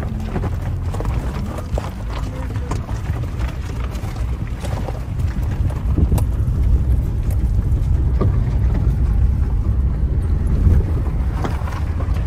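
Car driving on a rough, narrow mountain road: a steady low rumble with scattered knocks and rattles.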